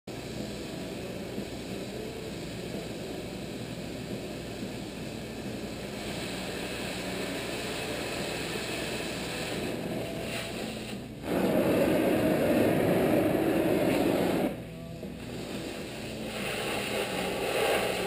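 Oxy-acetylene cutting torch with a steady rushing gas noise that jumps much louder for about three seconds midway, starting and stopping abruptly, then drops back.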